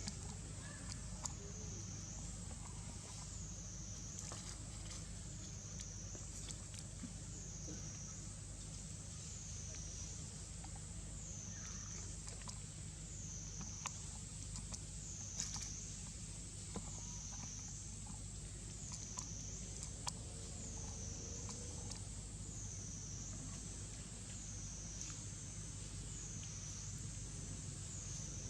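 Outdoor forest ambience: a high insect drone that swells and fades about every two seconds over a low rumble, with occasional faint clicks and rustles.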